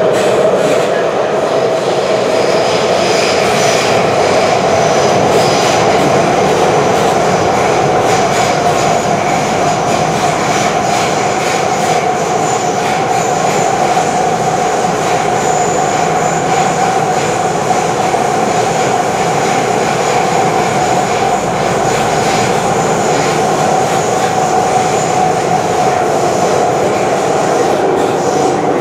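Passenger-cabin noise of a Chinese-built MTR metro train (A359/A360) running in a tunnel: a steady loud rumble of wheels on rail, with a tone that climbs a little over the first half and then holds steady.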